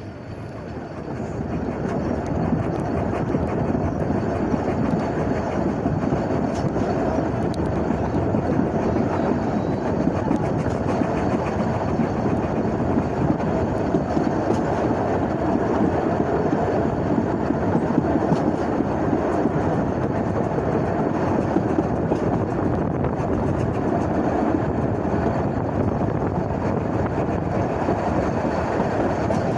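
Steam train running on the Isle of Man Railway's narrow-gauge track: a steady rumble and rattle of wheels and carriages, growing louder over the first two seconds and then holding even.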